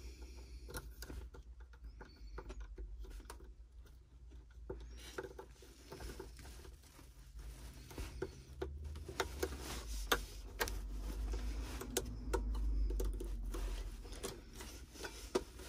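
Scattered small clicks and taps of hard plastic being handled as a plastic weed guard is pushed and clipped onto a bait boat's propeller housing, the clicks coming thicker from about a third of the way in, over a low rumble.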